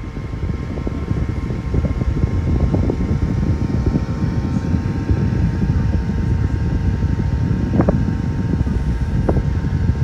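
Opolar 5.5-inch battery-powered box fan running steadily at full power: an even whir with a faint motor hum, over a low rumble of moving air.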